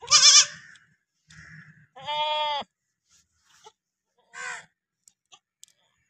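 Goats bleating, three calls: a loud, wavering bleat at the start, a steadier one about two seconds in, and a shorter, fainter one a little past halfway.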